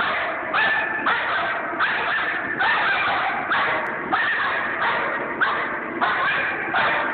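Young German shepherd barking steadily, a little more than one bark a second, straining on the line toward the helper in protection training.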